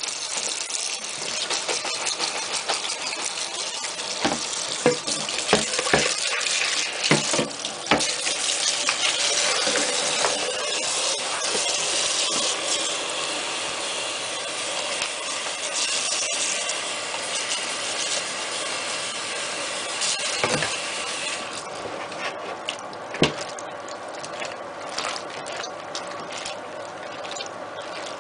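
Kitchen tap running into a plastic bowl of diced aubergine as hands rinse and stir the cubes, with a few knocks of the plastic bowl and colander against the stainless steel sink. The running water stops about three quarters of the way through, leaving quieter handling of the wet cubes.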